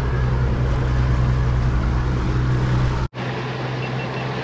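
Yamaha 250 outboard motor running steadily at trolling speed, a low hum under rushing wake water. About three seconds in the sound cuts off abruptly, and the engine is quieter afterwards, with wind and water noise remaining.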